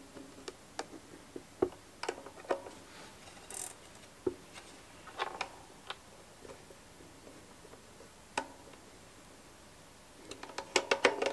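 Scattered small metal clicks and taps of a screwdriver and parts on a Bolex M8 projector's manual-drive knob coupling, as its set screw is loosened and the coupling shifted forward on the axle so the knob grips the spring parts; a quick run of clicks comes near the end.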